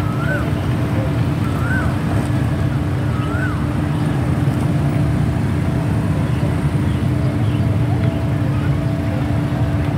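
A steady low engine rumble with a constant hum. A few short rising-then-falling chirps repeat about every second and a half in the first few seconds.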